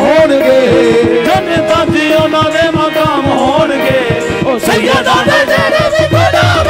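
Loud qawwali music: a held drone and melody under a voice gliding through sung ornaments, over a steady hand-drum rhythm. A deeper rhythmic bass enters about six seconds in.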